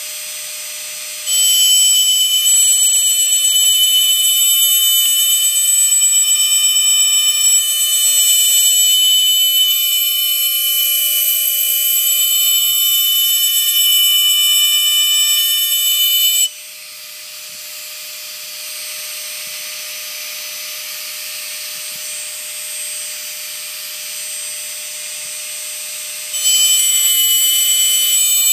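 Foredom flex-shaft rotary tool with a small burr running at a steady high whine while engraving glass. The sound turns louder and harsher where the burr grinds into the glass, from about a second in until just past halfway, eases to a quieter whine for about ten seconds, then grinds loudly again near the end.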